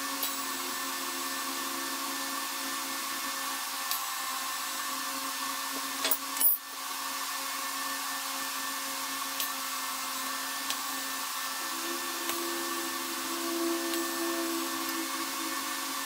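TIG welding on a steel axle housing: a steady hum and hiss from the arc and welder, with one sharp click about six and a half seconds in.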